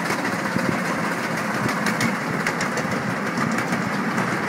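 A 7¼-inch gauge ride-on miniature train running along its track, a steady mechanical running noise with irregular sharp clicks from the wheels on the rails.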